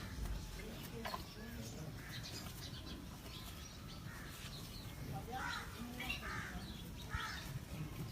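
Birds calling, a few short calls at a time, most of them bunched in the second half.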